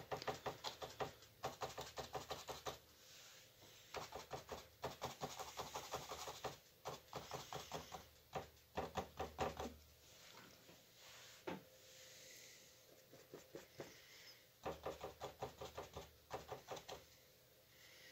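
Paintbrush dabbing and tapping paint onto a stretched canvas on an easel, giving soft, faint taps several a second. The taps come in bursts of two or three seconds with short pauses between.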